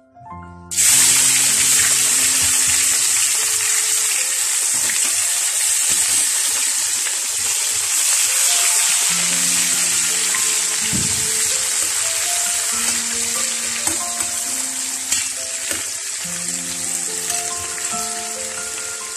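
Eggs frying in hot oil in a metal pan: a loud, steady sizzle that starts abruptly about a second in, over background music.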